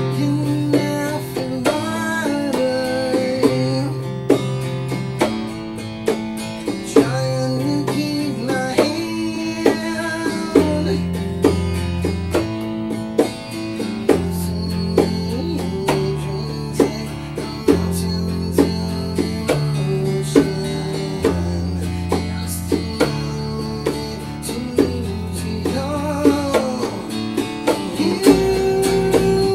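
Live acoustic rock band playing: strummed acoustic guitar over an electric bass line, with hand-played bongos adding sharp hits. Deeper held bass notes come in about ten seconds in.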